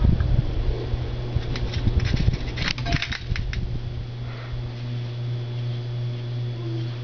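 Ceiling fan motor running with a steady low hum. A low thump comes right at the start, and a cluster of light metallic clicks and jingling comes between about one and a half and three and a half seconds in.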